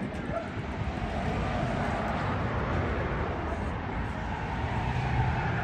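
Airbus A320neo's CFM LEAP-1A jet engines running as the airliner rolls out down the runway after touchdown: a steady rushing noise with a faint whine.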